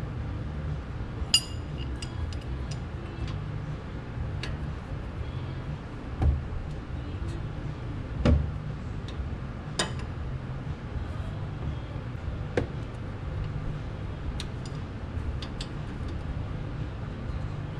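Scattered metallic clinks and knocks of tools and brake parts being handled during reassembly, with a ringing clink about a second in and heavier knocks around the middle, over a steady low hum.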